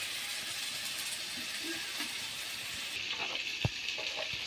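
Chicken in onion, garlic and ginger paste frying in oil in a steel kadai, a steady sizzle, with one sharp click about three and a half seconds in.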